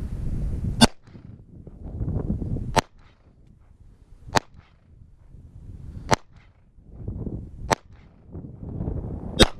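SIG Sauer handgun firing six single shots at a slow, even pace, about one every second and a half to two seconds, at targets on the ground. Wind noise runs low in between.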